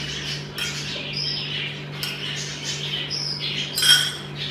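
Small birds chirping on and off in the background over a steady low hum, with one sharp clink about four seconds in, the loudest sound.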